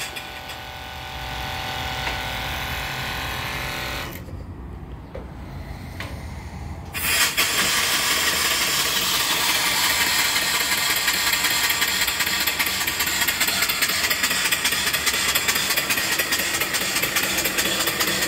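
Shop-built mill steam engine running, its belt turning an alternator: a loud steady hiss and clatter from about seven seconds in. Before that, a steady hum stops abruptly about four seconds in.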